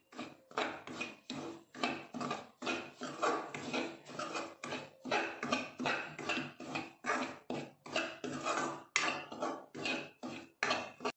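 Steel spoon scraping and stirring semolina round an aluminium kadhai in rhythmic strokes, about two or three a second. This is dry-roasting suji in ghee until golden for halwa.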